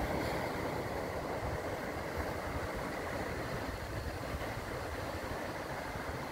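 Wind buffeting the microphone in a steady, uneven rumble over the wash of small waves breaking on a stony beach.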